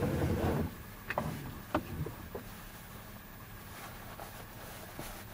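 Distant Caterpillar excavator's diesel engine running steadily, with a louder rumble in the first second and a few sharp knocks between one and two and a half seconds in.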